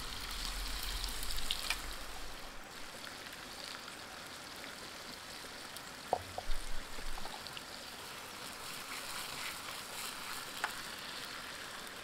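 Potato fries frying in shallow oil in a pan over a campfire: a steady sizzle with fine crackling. A stream runs in the background, and there are a couple of short knocks about six seconds in.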